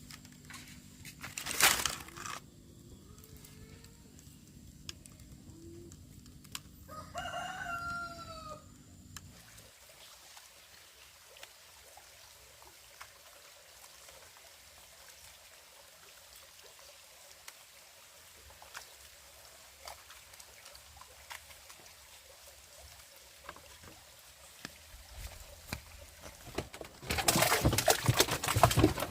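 A rooster crows once, about seven seconds in, a single call rising and then falling over roughly two seconds. A loud sharp noise comes near the start, and a loud noisy stretch near the end.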